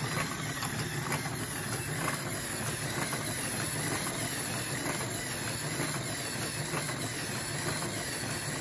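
Steady mechanical running noise with a low hum, even and unbroken throughout.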